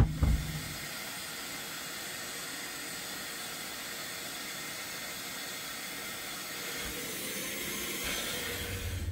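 Vacuum cleaner running steadily, a constant hiss of air drawn through its corrugated hose as it sucks up small black bugs. A brief thump comes at the very start.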